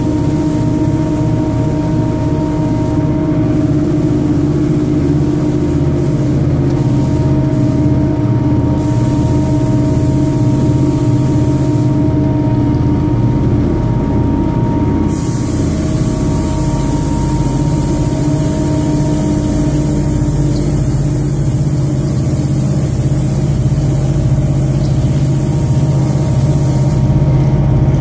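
Automatic carpet washing machine running: a loud, steady motor hum with a low pulsing beat. A loud hiss joins about nine seconds in, stops near twelve seconds, and comes back at fifteen seconds until near the end.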